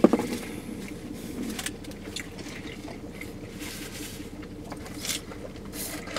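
Quiet eating and drinking noises in a car cabin: chewing, small rustles and sips through a straw from a fountain-drink cup, over a steady low hum. A sharp click comes right at the start.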